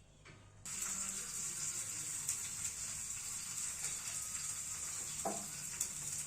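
A steady hissing, sizzle-like noise that starts suddenly about a second in, with a few faint ticks.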